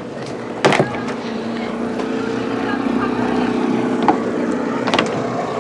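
A motor engine running steadily and slowly growing louder, its pitch rising a little, with a few short clicks over it.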